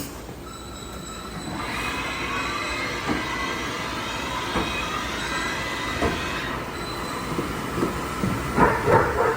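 Haas VF-6 vertical machining center running: a steady metallic whine with several high tones, broken by a few single knocks and a quick run of clunks and clatter near the end.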